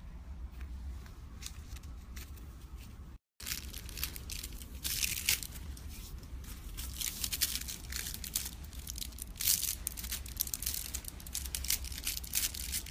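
Clear plastic crinkling and crackling as a cat bites and paws at it, a dense run of quick crackles from about three seconds in, after only faint ticks before.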